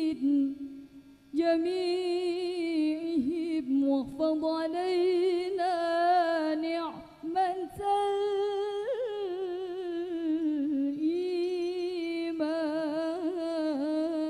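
Female voice singing an unaccompanied, ornamented Al-Banjari sholawat melody, with long wavering held notes and short breaks between phrases; the frame drums are silent.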